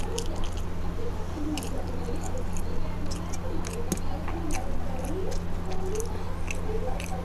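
Close-miked eating sounds of someone eating rice and curry by hand: chewing with many short, wet mouth clicks and lip smacks. A steady low hum runs underneath.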